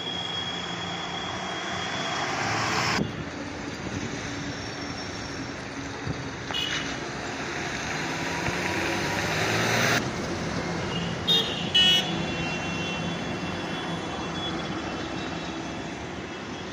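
Road traffic noise from vehicles going by, with two short horn toots about eleven seconds in.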